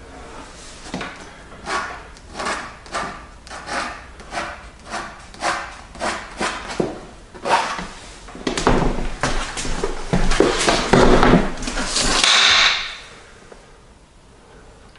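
Drawing strokes scratching across a stretched canvas during quick sketching, about two strokes a second. It turns into a few seconds of denser, louder scribbling that stops abruptly, leaving the last two seconds quiet.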